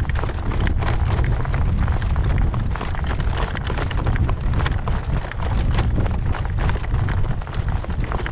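Gale-force wind buffeting the microphone in a heavy, steady rumble, with a horse's hoofbeats on the road.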